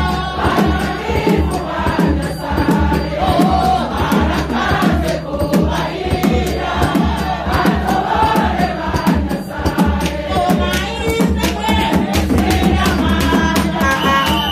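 Congregation singing and chanting together over steady drum beats, with a trumpet coming in with held notes near the end.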